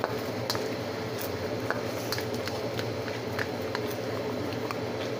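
Orange sauce of orange juice and sweet and sour sauce simmering in a pan while a spatula stirs it, with scattered small pops and scrapes over a steady hum.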